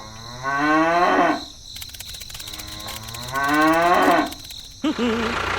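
Cow mooing: two long moos, each rising in pitch, followed near the end by a steady noise.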